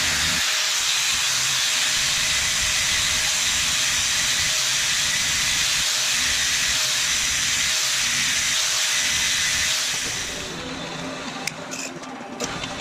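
Angle grinder grinding steel: a loud, steady hiss of the disc on the metal, which stops about ten seconds in, leaving a few faint clicks.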